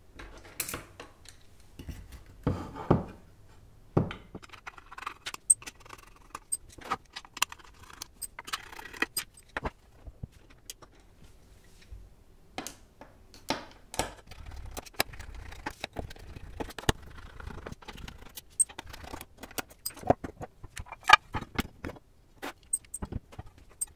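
Precision screwdriver undoing the screws on the underside of an aluminium keyboard case, then the case halves lifted apart: a dense run of small metallic clicks, ticks and light scrapes, with a few louder knocks as parts are set down.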